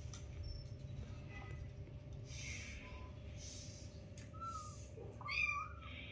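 Kitten mewing: a short mew about four seconds in, then a louder, higher mew near the end, over soft scuffling of kittens wrestling on a rag rug.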